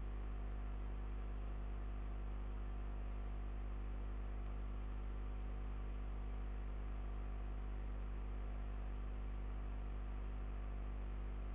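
Steady low electrical hum with a faint hiss: the recording's background noise, unchanging throughout.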